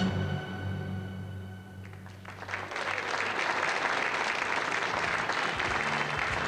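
The held closing chord of the song fades away, and about two seconds in the audience breaks into steady applause that carries on.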